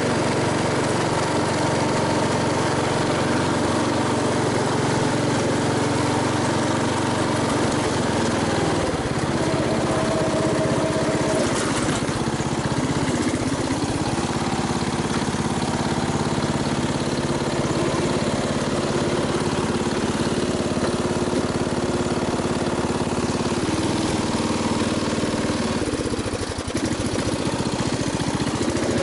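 MTD ride-on mower's engine running steadily. Its note changes about a third of the way in and again near the end, with a brief dip in level shortly before the end.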